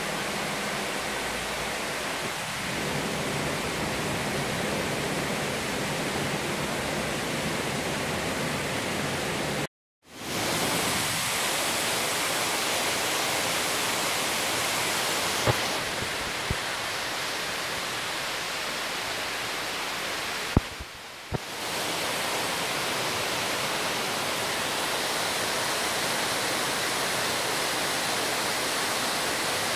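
Steady, even rushing noise with no clear source. It cuts out for a moment about a third of the way in, and a few faint clicks come later, along with another brief dip.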